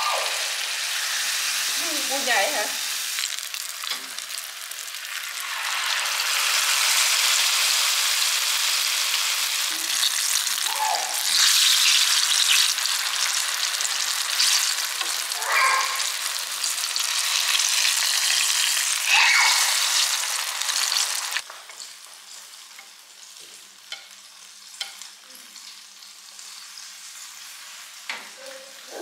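Banana cake batter frying in hot oil in a frying pan, a loud steady sizzle, with chopsticks turning the pieces. About two-thirds of the way through the sizzle drops suddenly to a much quieter level.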